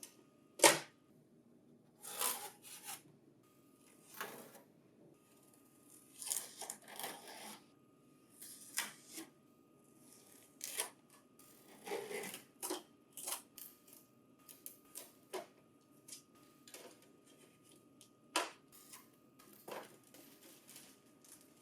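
Packing material being pulled off a new Lexmark colour laser printer: a string of sharp clicks and snaps with short bouts of rustling and scraping of tape and plastic, the loudest a sharp snap about half a second in.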